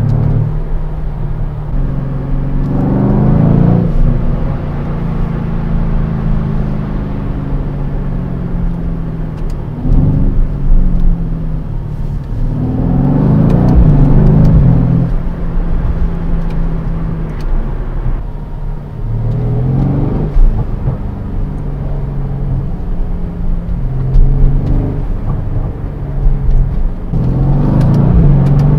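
Mercedes-AMG C63 S estate's 4.0-litre twin-turbo V8 with its sport exhaust open in comfort mode, heard from inside the cabin: a deep growl at low revs, swelling about five times as the car accelerates and then easing off.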